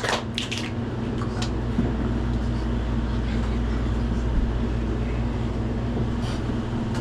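Steady low hum of room noise, with a few short clicks and rustles about the first second.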